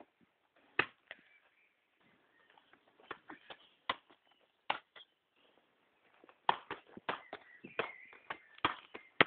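A football being kicked and juggled: a series of short, sharp thumps at an uneven pace, sparse at first and coming thick and fast in the last few seconds.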